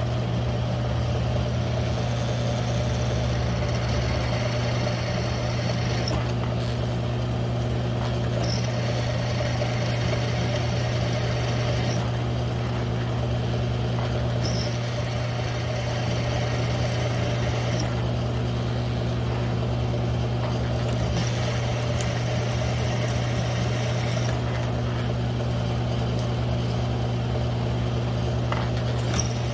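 Mill-drill motor and spindle running steadily with a strong hum while a one-inch hole saw cuts into 3/8-inch mild steel plate. The higher cutting noise fades and comes back every few seconds.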